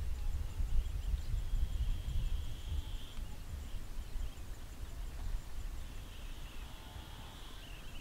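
Outdoor ambience: a low rumble of wind on the microphone, with a high, thin, wavering animal call coming and going in the background, strongest about a second and a half in and again near the end.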